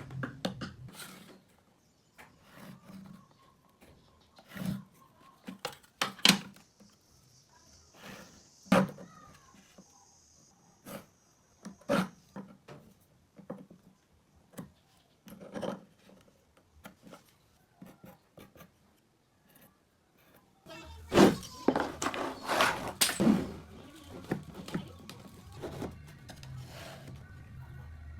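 Irregular knocks and taps of wood on wood, with some rubbing, from hand work on wooden pieces. They come thicker over a low hum from about three quarters of the way in.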